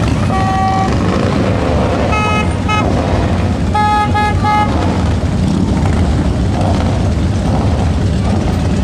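Vehicle horn honking in short toots: one about half a second in, a pair about two seconds in, then three quick toots about four seconds in, over a steady low rumble.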